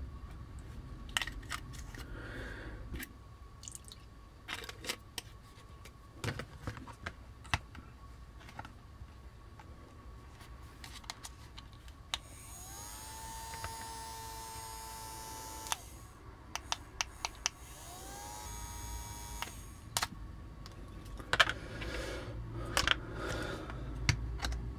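Battery-powered toy bubble gun's small electric fan motor whirring for about three seconds, its whine rising as it spins up and then holding steady, with a rush of air; it runs again briefly a few seconds later. Around it, the toy's plastic parts click and knock as it is handled and fitted with its solution tray, and bubble liquid is poured into the tray at the start.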